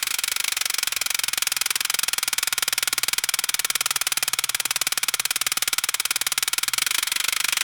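Grain auger and its motor running steadily: a rapid, even, rattling pulse.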